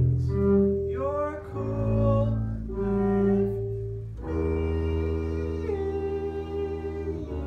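Double bass played with the bow: a short phrase of held low notes, then one long sustained closing note from about four seconds in, ending the song.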